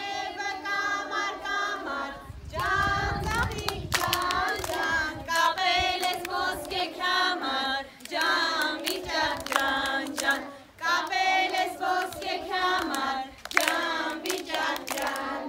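Children and women singing an Armenian Ascension (vichak) folk song together in chorus, with hand-clapping in time through the song.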